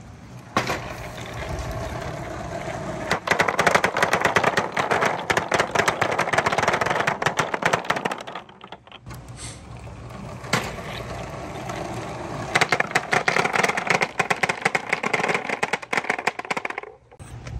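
Dozens of balls rolling down a plastic rain-gutter marble run and onto a perforated-board slope, knocking against each other in a dense, rapid clatter. It eases off about eight seconds in, then builds again as more balls pour down.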